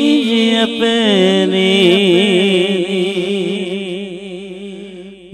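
A man singing a Punjabi naat (devotional kalam), drawing out a word in a long, wavering melismatic line. The note fades away over the last couple of seconds.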